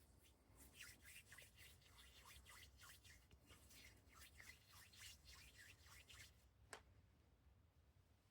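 Faint ASMR hand sounds: hands rubbing and swishing against each other close to the microphone, a few quick strokes a second. They stop about six seconds in, followed by one sharp click.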